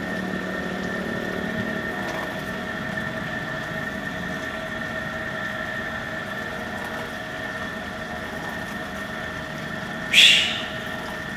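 A steady mechanical drone, like a small engine running, made of several held tones. About ten seconds in, a short, loud, sharp noisy burst rises and fades quickly.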